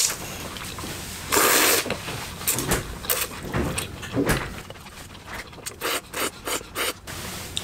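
A person slurping long noodles, in a series of noisy slurps: one long slurp a little over a second in, a few shorter ones after it, then a quick run of short slurps near the end.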